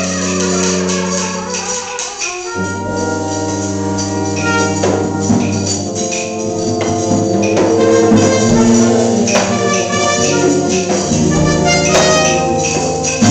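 Live brass band playing an improvised piece: low brass holds deep bass notes under sustained horn chords, with drum and cymbal hits. Over the first two seconds a horn line slides downward before the band settles into held chords.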